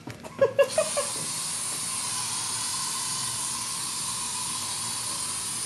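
Aerosol can of insecticide spraying in one long, steady hiss that starts about a second in.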